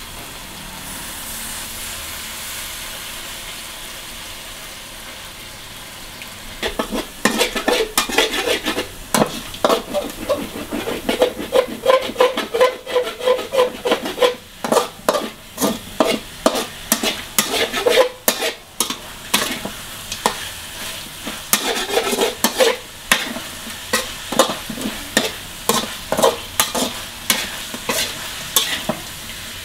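Frog meat and chillies sizzling in a metal wok, steady at first; from about six seconds in a metal spatula scrapes and clacks against the wok over and over as the stir-fry is turned.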